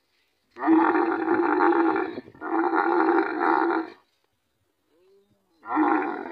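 Camel roaring during mating: two long loud calls back to back, a pause, then another call starting near the end.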